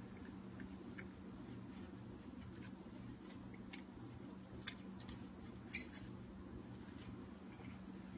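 Faint scattered clicks and crackles as a cat rolls and licks in spilled dried catnip, the loudest a short crackle a little past halfway, over a steady low hum.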